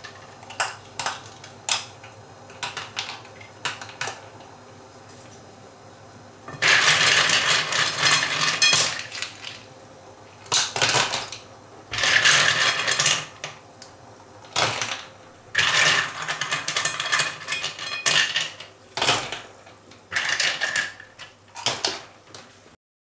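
Cockles dropped by the handful into a stainless-steel pot of hot water: the shells clink against each other and the pot, with splashes, in repeated bursts. In the first few seconds there are only light, scattered clicks of shells.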